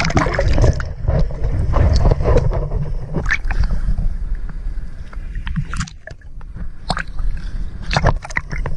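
Seawater sloshing and splashing around a camera held at the waterline, with a heavy low rumble and many short splashes; it eases off briefly a little after the middle.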